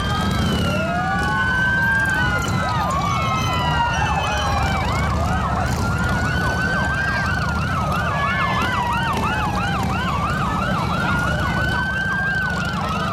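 Several police and fire-engine sirens sounding at once: slow wails rising and falling overlap one another, and a fast yelp of about four cycles a second runs through the middle.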